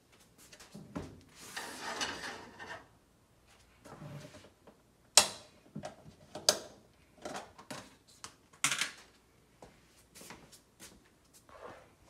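Plastic tub of margarine spread being handled: rustling and scraping as the lid comes off and a utensil digs spread out, with several sharp clicks and knocks of plastic, the loudest about five seconds in.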